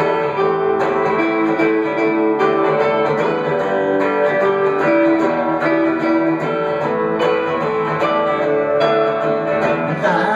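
Instrumental passage played on two electric guitars: strummed chords under a picked melody line that changes note about every half second.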